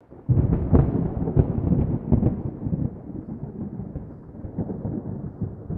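Thunder sound effect: a rolling rumble broken by several sharp cracks. It starts suddenly and grows quieter after about three seconds.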